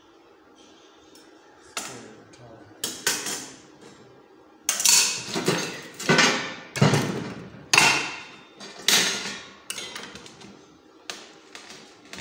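A hammer striking a welded square steel-tube frame: about a dozen separate metallic blows, each ringing briefly, the heaviest in the middle, followed by a few lighter knocks and clanks as the frame is moved.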